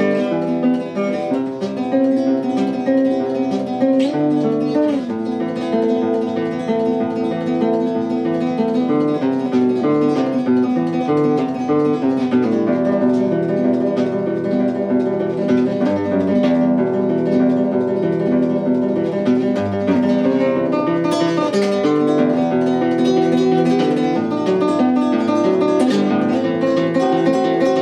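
Acoustic guitar music playing steadily.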